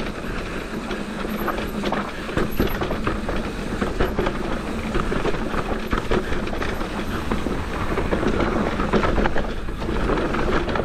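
Mountain bike rolling fast down a dirt trail: tyres rumbling over rough ground, with a constant rattle and many sharp clatters from the bike over bumps.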